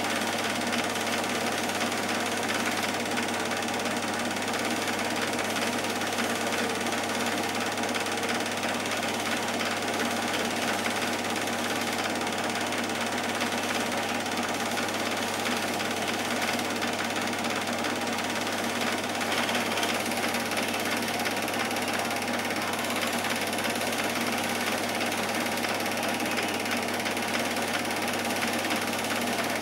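Cine film projector running: a steady, rapid clatter of the film-advance mechanism over a constant low hum.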